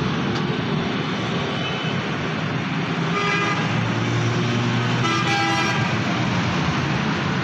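Daihatsu Hijet van's engine idling at a raised fast idle while still cold, under a steady rush of traffic noise. Two short vehicle-horn toots sound about three seconds in and again around five seconds in.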